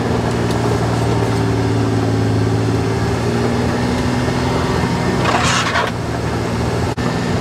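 Kawasaki Mule Pro-FXT side-by-side's three-cylinder engine running steadily while it drives along a gravel trail. A short burst of rustling noise comes in about five and a half seconds in.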